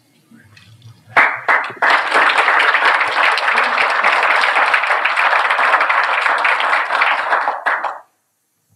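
Audience applauding: a few scattered claps about a second in, then steady applause from the whole room that cuts off suddenly near the end.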